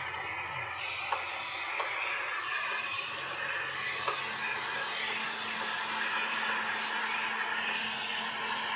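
Electric heat gun running steadily, its fan blowing with a hiss over a low hum, as it heat-shrinks ceramic window tint film onto curved cab glass. A few faint clicks sound in the first half.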